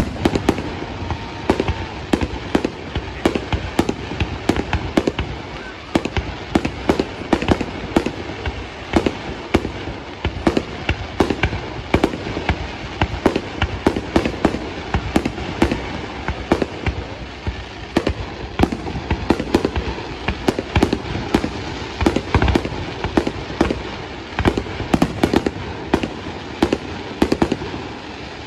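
Fireworks display: aerial shells launching and bursting in quick succession, several sharp bangs a second over a low rumble.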